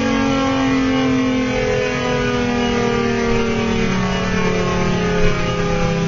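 Federal Signal Thunderbolt tornado siren winding down at chopper setting 6, one loud tone whose pitch falls steadily and slowly.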